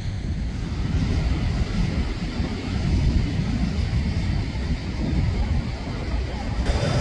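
Wind rumbling on the microphone over a steady low rumble; near the end a brighter hiss joins in as a jet airliner on final approach draws near.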